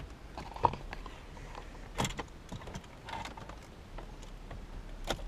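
Scattered light clicks and knocks, the strongest about two seconds in: a car radio and its fittings being handled and worked loose from the dashboard.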